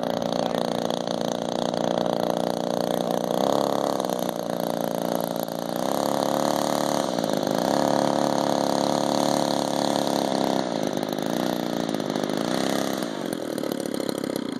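The model Piper Cub's NGH 35cc single-cylinder two-stroke gas engine running at low throttle as the plane taxis, its speed rising and falling several times, then dropping back near the end.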